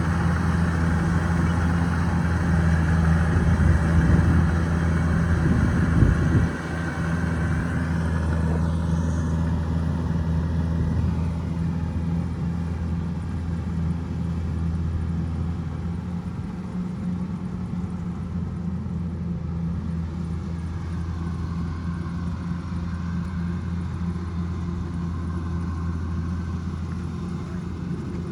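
Kubota DC105X combine harvester's diesel engine running steadily under load with a deep hum, a fainter high whine above it. The sound drops a little in level about six seconds in.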